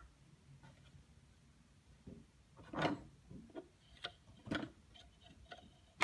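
Faint scattered clicks and rustles, mostly in the second half, from hands handling thread and parts while rethreading a sewing machine's needle; the machine is not running.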